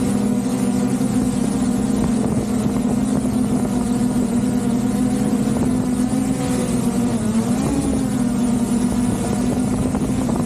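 Quadcopter drone's propellers humming steadily at close range, with a brief rise and fall in pitch about seven seconds in.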